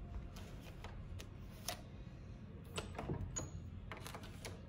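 A plastic key card clicking in and out of the slot of an electronic hotel door lock, several faint clicks in a row, with two brief high beeps about three seconds in. The lock is not accepting the card.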